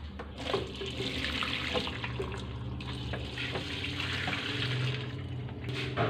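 A warm mix of citric acid, washing detergent and water poured from a plastic container into a top-loading washing machine's drum, a steady pour that starts about half a second in and stops near the end.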